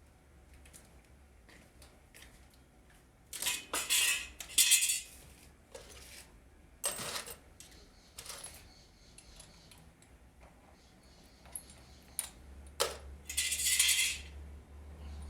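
Clinks and rattles of small hard objects being handled, in several short bursts with pauses between them, over a faint low hum.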